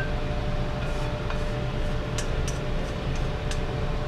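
Wooden spatula scraping cooked vegetables out of a steel wok into a glass bowl, a few light scrapes and ticks about two seconds in and again near the end, over a steady low hum.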